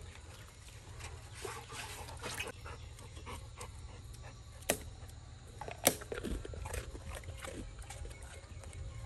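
A Labrador lapping water from a plastic basin, with scattered short wet clicks and splashes. Two sharp clicks a little before and just after the middle are the loudest sounds.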